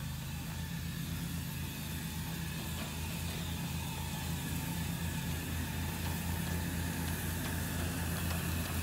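Oil-fired live-steam 10-wheeler scale locomotive working slowly past: a steady low rumble with a quick, even pulse and a layer of hiss, growing a little louder as it comes closer.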